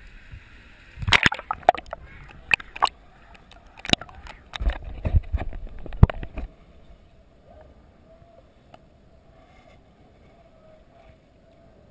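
Water splashing and sloshing against a handheld action camera at the surface while snorkeling. About six and a half seconds in it cuts off sharply to a faint, muffled underwater hush as the camera goes under.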